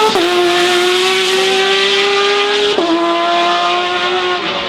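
Porsche racing car engine accelerating hard, its note climbing and then dropping sharply at each upshift, three shifts in all.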